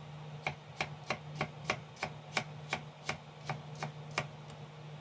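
Chef's knife slicing fresh ginger on a wooden cutting board: a steady run of about a dozen sharp taps of the blade against the board, roughly three a second, over a faint steady low hum.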